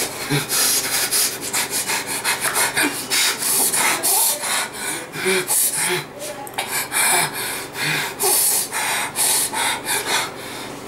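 Close rubbing and rustling on the microphone in quick, irregular strokes, a couple a second.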